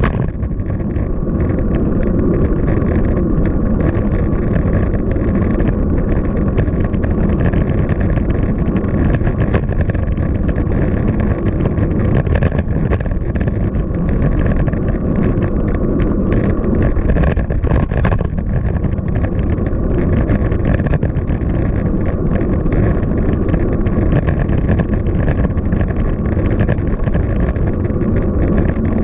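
Steady wind rumble buffeting the microphone while riding a road bicycle along city streets, with traffic and tyre noise underneath.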